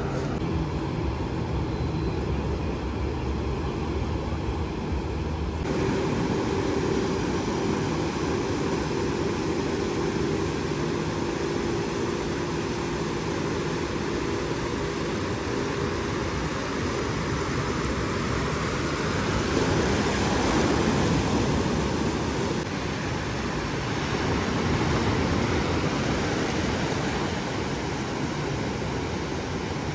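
Small waves breaking and washing up the sand, the surf swelling louder a little past the middle and again later. Underneath, a motorboat engine drones steadily and fades out a little past halfway.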